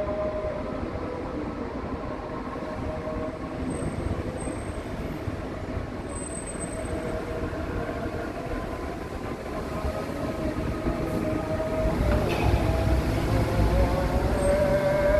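Dubai Metro train running, heard from inside the car: a steady motor whine over a low rumble. The rumble grows louder from about ten seconds in.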